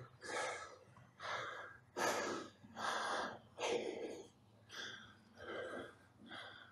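A man breathing hard and fast: about eight heavy, gasping breaths, evenly spaced. He is out of breath after an all-out two-minute sprint for maximum calories on an air bike.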